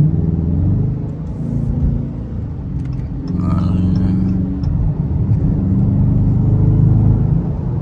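Dodge HEMI V8 engine heard from inside the car's cabin, a deep running note that eases off about a second in, then builds again and shifts pitch as the car pulls.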